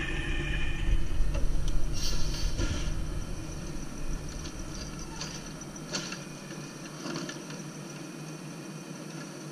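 Natural-gas automated side-loader garbage truck running at the curb as its hydraulic arm extends toward a trash cart, with a steady high whine and a few sharp metallic clanks from the arm. The engine's low rumble drops away about six seconds in.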